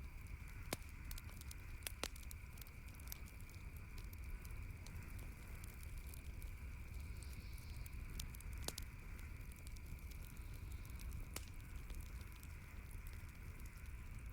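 Campfire crackling, with scattered sharp pops over a steady background hiss.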